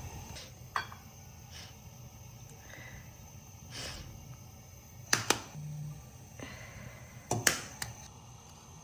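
Eggs being cracked and separated by hand over ceramic bowls. Scattered sharp taps and cracks of eggshell, the loudest as two quick double taps a little past halfway and again near the end.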